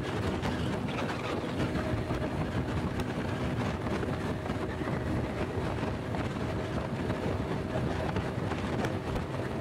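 Honda Pop 100's small single-cylinder four-stroke engine running steadily at cruising speed, with wind rushing over the rider-mounted microphone.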